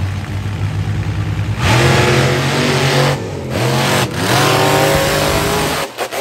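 Monster truck engine running loudly, then revving hard from about a second and a half in, its pitch rising and falling as the throttle is worked, with a brief dip in the middle before it revs up again; the sound drops away suddenly near the end.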